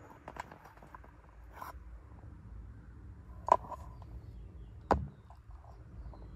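Two sharp knocks about a second and a half apart, the first the louder, over a low rumble with a few faint clicks.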